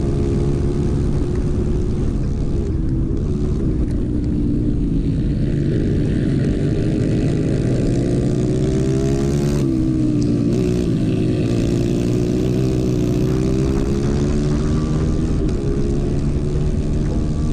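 Racing kart engine heard onboard at speed on a dirt track. Its pitch falls and climbs again several times as the driver lifts and gets back on the throttle through the corners, with a sharp drop about ten seconds in. Wind and tyre noise run underneath.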